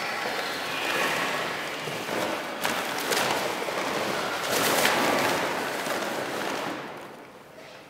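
A large sheet of paper crumpling and rustling as a dancer moves in it, with sharp crackles, fading down near the end.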